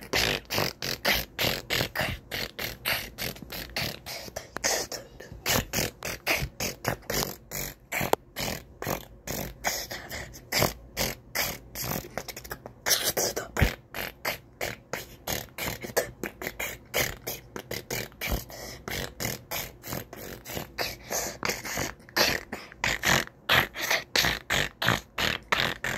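A boy beatboxing into a phone: a fast, unbroken run of percussive mouth sounds, with his hand cupped over his mouth near the end.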